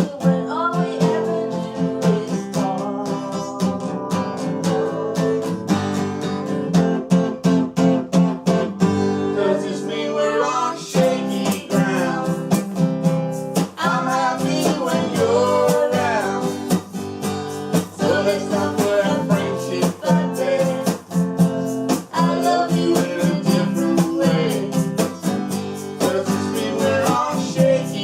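Acoustic guitar strummed in a steady rhythm, with a wavering, sliding melody line carried over the chords.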